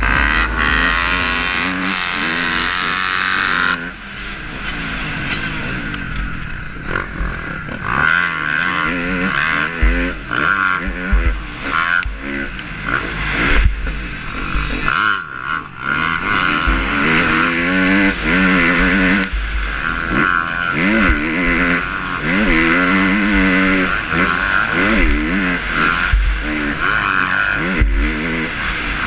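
Dirt bike engine revving hard and easing off again and again, its pitch climbing and dropping as the rider runs through the gears around a motocross track, heard from the rider's own bike.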